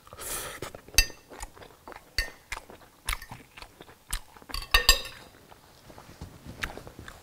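A person eating at the table: a crunchy bite and chewing, with sharp clinks of a metal knife and fork on a plate, the loudest cluster about five seconds in.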